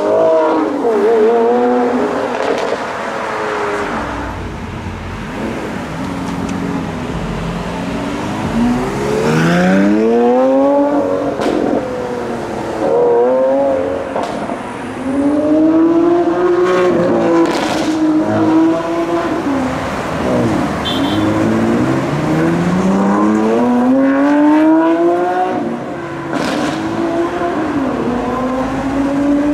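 Lamborghini Sián FKP 37's naturally aspirated V12 accelerating hard in a series of pulls, its pitch climbing steeply through the revs and dropping sharply at each upshift.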